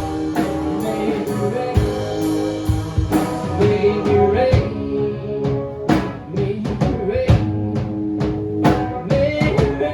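A rock band playing: a drum kit keeps a steady beat under held guitar chords, with a voice singing in places.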